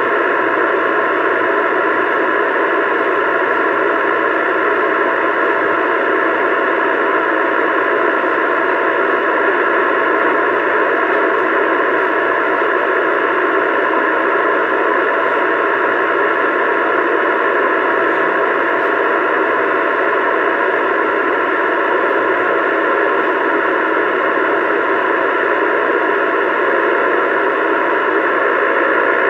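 Steady static hiss from a CB radio's speaker with the squelch open and no station coming in.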